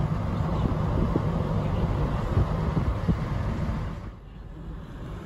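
Steady road and wind noise inside a moving car, dipping for about a second around four seconds in.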